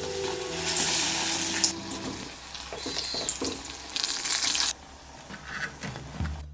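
Food frying in hot oil in a pan, a loud sizzle that swells twice and cuts off suddenly about three-quarters of the way through, followed by a few light knocks.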